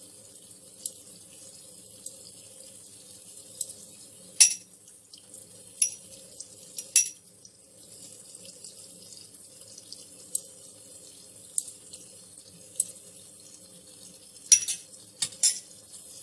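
Chicken and tomatoes simmering in a karahi, with short sharp pops and clicks about every second over a steady low hum. A few louder metallic clicks come as tongs pick the skins off the softened tomatoes, loudest about four and seven seconds in and near the end.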